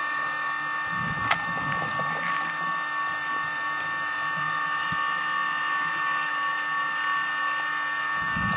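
Underwater recording of a steady mechanical hum made up of several fixed tones over a hiss, with one sharp click about a second in.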